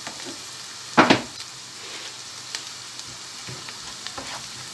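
Chopped onions and garlic sizzling in butter and olive oil in a frying pan while a wooden spoon stirs them, with one louder spoon stroke against the pan about a second in.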